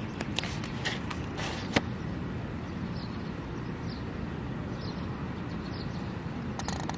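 Steady low outdoor rumble with a few sharp clicks and taps in the first two seconds, the loudest just before the second mark.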